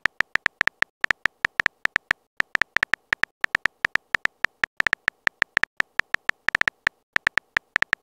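Phone keyboard typing clicks from a texting-story app, one short sharp click per letter at about six or seven a second, in an uneven rhythm with brief gaps between words.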